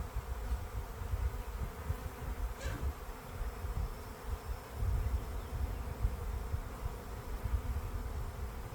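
A swarm of agitated honeybees buzzing steadily around an open hive, with one bee passing close about two and a half seconds in. Uneven low rumbling on the microphone runs underneath.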